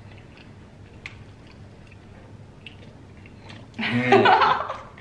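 Faint chewing and wet mouth clicks of people eating grilled chicken skewers. About four seconds in, a loud, drawn-out vocal exclamation of delight with a mouthful of food, lasting about a second.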